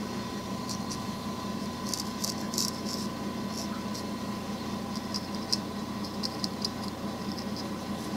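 Straight razor scraping through lather and short hair at the sideburn and around the ear, in a series of short, crisp strokes that come in clusters.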